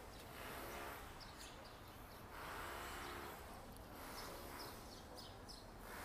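Faint outdoor city ambience: a low steady hum with slow swells of distant noise, and scattered short, high bird chirps.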